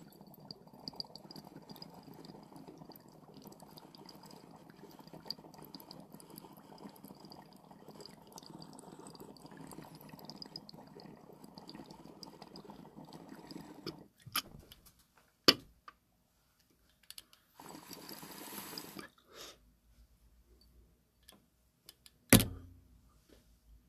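Water bubbling steadily in a glass dab rig as a long hit is drawn through it, for about fourteen seconds. Then a few sharp clicks and two short breathy bursts, the second louder, near the end.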